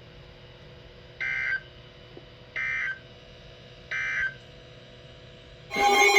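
Three short digital data bursts of an Emergency Alert System broadcast, about 1.4 seconds apart: the SAME end-of-message code that closes the flash flood warning. Near the end, a louder signal with several steady tones begins, the start of the next alert's tones.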